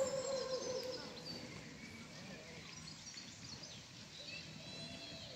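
Park ambience: small birds chirping and singing throughout, over faint distant voices. A held, lower call fades out in the first second.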